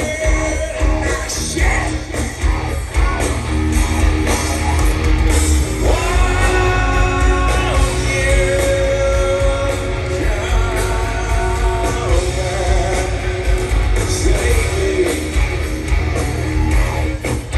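Rock band playing live: electric guitar, drums and bass under a lead vocal that holds long notes through the middle, with a heavy low end.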